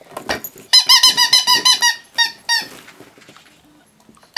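Squeaky dog toy squeezed over and over as a husky bites it: a quick run of high squeaks, about six a second for over a second, then two single squeaks before it stops.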